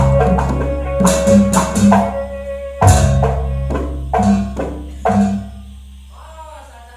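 Banyuwangi traditional dance music: rhythmic drum and percussion strikes over two deep, long-ringing low strokes. The playing stops about five seconds in and the sound dies away.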